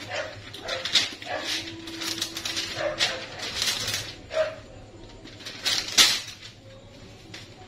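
Wax paper crinkling and rustling as a sheet is pulled from its box and torn off, with sharper crackles about a second in and again near six seconds. Short yelps are mixed in at times.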